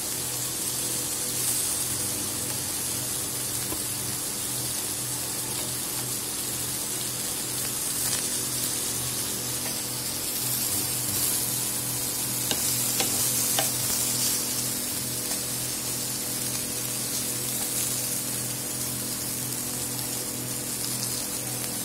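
Oil sizzling steadily in a pan as pieces of steamed dry fish shallow-fry, over a steady low hum.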